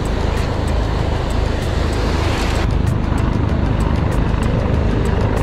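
Wind buffeting the microphone, a steady low rumble, over the hiss of breaking surf, with a faint regular ticking through it. The upper hiss eases about two and a half seconds in.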